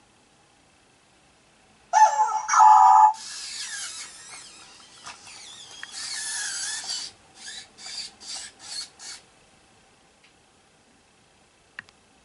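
WowWee Robopuppy toy robot dog: a short electronic dog yelp from its small speaker, then its gear motors whirring and rasping as it rights itself from its back onto its feet, ending in five short bursts.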